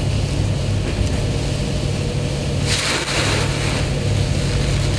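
A ferry's engines drone steadily, heard from inside the passenger cabin. About three seconds in there is a brief splashing rush, which fits spray from a wave breaking over the bow while the ferry runs into heavy seas.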